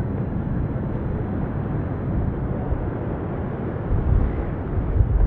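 Wind buffeting the microphone outdoors: a steady rumbling haze, with stronger gusts near the end.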